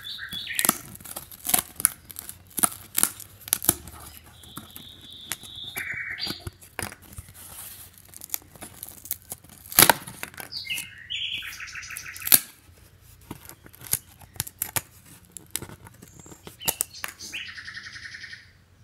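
Die-cut pieces of a 3D puzzle being pushed out of their sheet: repeated sharp snaps and tearing of the board, with a few short squeaky scrapes as pieces rub free.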